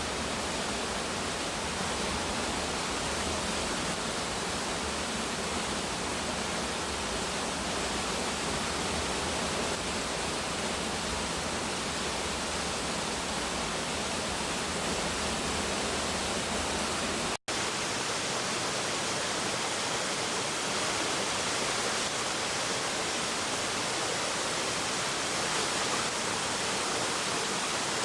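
Waterfall: a steady rush of falling water. There is a brief cut-out about 17 seconds in, and after it the deep rumble is weaker.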